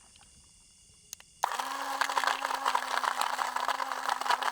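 Small battery-powered portable blender switched on about a second and a half in, with a click just before. Its motor then runs at a steady hum under a gritty churning as it grinds nuts, spices, sesame and water into a paste.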